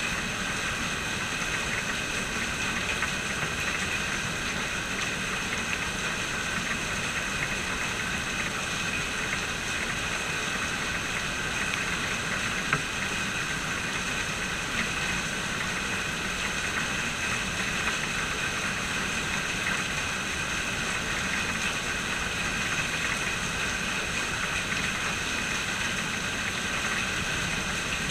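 Steady rain falling, an even hiss with a constant hum of several steady tones running under it. A single sharp click about halfway through.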